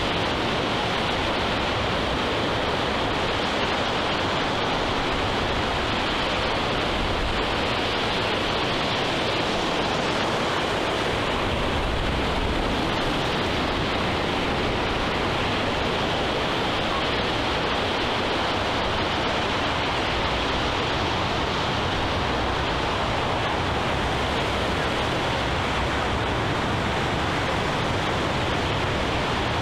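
Steady rush of ocean surf washing onto a rocky shoreline, an even noise with no swells or breaks.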